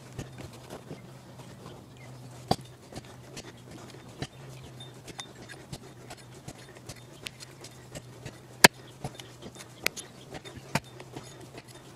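Scattered light knocks and clicks at an uneven pace, with a sharper knock about two and a half seconds in and a single loudest knock near nine seconds, over a faint steady low hum.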